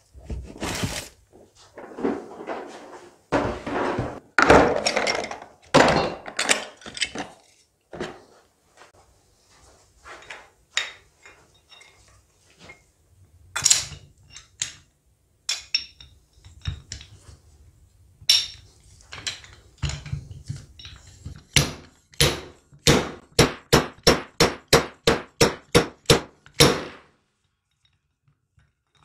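Plastic tool cases and tools being rummaged and handled, then a split fork-seal driver knocked down the fork tube onto the slider of a Honda VFR400 NC30 front fork again and again, about three sharp strikes a second for some five seconds, driving the new oil seal home.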